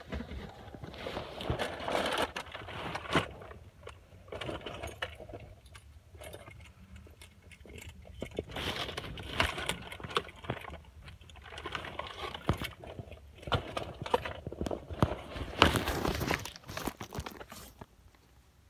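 Rustling and scraping of a phone being carried and handled with its microphone covered, with scattered clicks and knocks.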